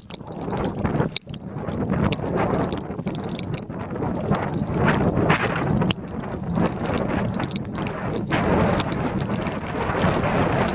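Blizzard wind buffeting the microphone, a rough, gusting rumble with scattered clicks and knocks.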